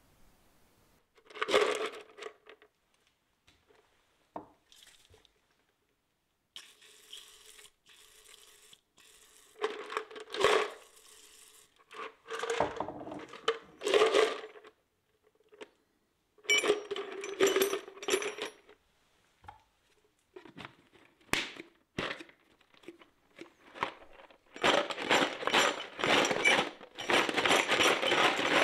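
Scattered knocks and scrapes of an axe head being handled on a wooden workbench. Near the end comes a continuous dense rattle: the white plastic tub is shaken with the axe head and stones inside to give the steel a stonewash finish.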